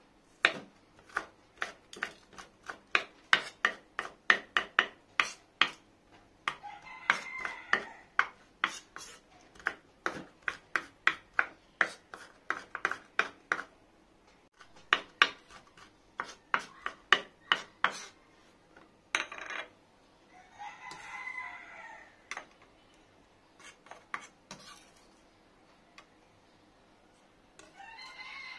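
A large kitchen knife chops garlic and red chilies on an end-grain wooden cutting board: quick knocks about three a second, in runs with short pauses, thinning out over the last few seconds. Three times a longer pitched call of about two seconds sounds behind the chopping.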